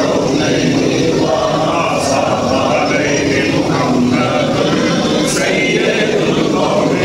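Many men's voices chanting together in unison, one phrase repeating about every three seconds.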